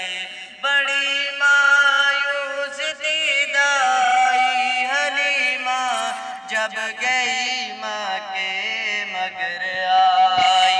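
A young boy's voice singing a naat, an Islamic devotional poem, into a microphone, amplified through a small portable loudspeaker. One melodic voice with long held and ornamented notes and no instruments.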